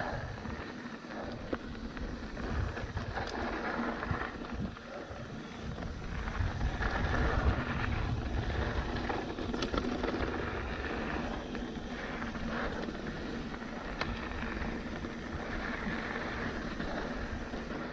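Trek Remedy mountain bike rolling along a dirt desert trail: tyres crunching over gravel, with wind buffeting the microphone and small rattles and ticks from the bike.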